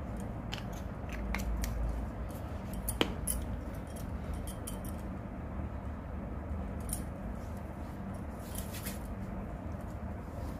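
Light handling noises: scattered soft clicks and taps, with one sharp click about three seconds in, over a low steady hum. The clicks fit a hand working a small cosmetics container of aloe vera gel during application.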